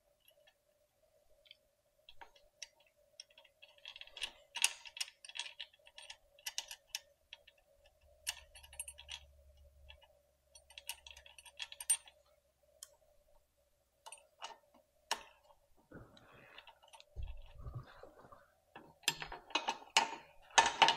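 Scattered light metallic clicks and taps of small hardware being handled and fitted while the axle parts of an e-bike's rear hub motor go back on: washers, nuts and bracket. A faint steady hum sits underneath, and a few dull knocks come near the end.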